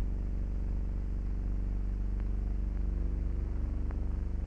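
Engines of a US Navy PT motor torpedo boat running, a steady low throbbing rumble.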